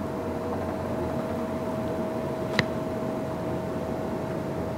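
Steady mechanical hum with one constant tone over a broad hiss, like a fan or other machine running in a room. A single sharp click comes about two and a half seconds in.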